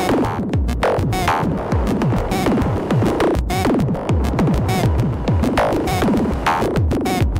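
Make Noise semi-modular synthesizers (0-Coast and Strega) playing electronic music. A rapid stream of short pitched notes, each falling in pitch, runs over a low pulsing rhythm.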